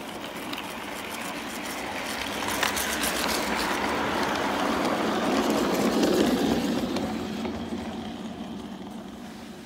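Battery-powered LGB Stainz G-scale locomotive running on garden-railway track, its electric drive and wheels making a steady running noise with a few light clicks. It grows louder as the loco approaches, is loudest about six seconds in as it passes close by, then fades away.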